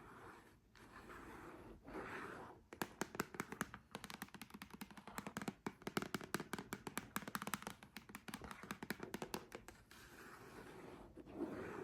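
Long fingernails tapping in a rapid run of light clicks, many a second, with softer scratching before the tapping starts about three seconds in and again after it stops near the end.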